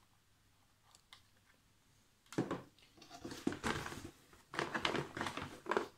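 Cardboard packaging rustling and knocking as hands rummage in an open box and pull items out. A small click comes about a second in, and the handling noise picks up after about two seconds.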